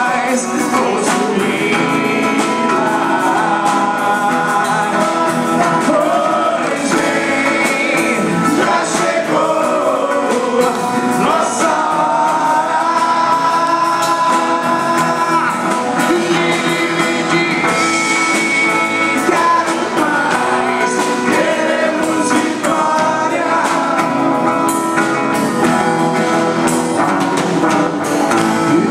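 A band's song playing: sung melody over guitar and a full backing mix, steady and loud throughout.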